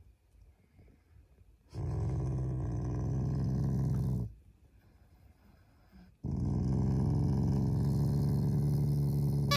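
Black Shiba Inu growling as its muzzle is stroked: two long growls, each a few seconds long, with a short pause between them. A play growl of affection, not anger.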